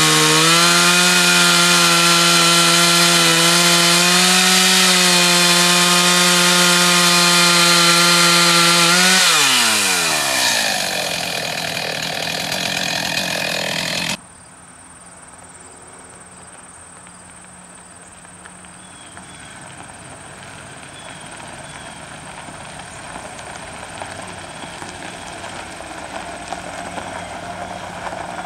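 Gas two-stroke chainsaw running at full throttle, cutting through a log with a steady high pitch. About nine seconds in the throttle is released and the revs fall to idle, and the saw's sound cuts off suddenly a few seconds later, leaving a much quieter steady background noise.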